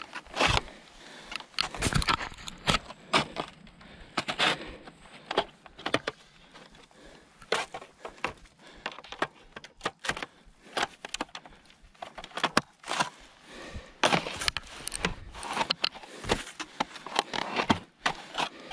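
Crossblades short skis scraping and clattering over hard, groomed snow, with ski-pole tips striking the crust: an irregular run of sharp scrapes and clicks, about one or two a second.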